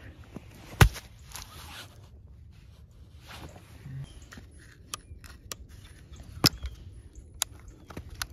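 Footsteps in snow and leaf litter with handling noise, broken by several sharp clicks and knocks; the loudest knock comes about a second in.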